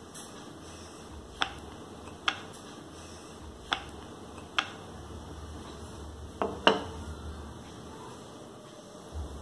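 Wooden rolling pin working floured dough on a hard stone counter, giving six sharp, short knocks at irregular intervals as the pin and its handles strike the hard surface. The loudest is a quick double knock about two-thirds of the way through.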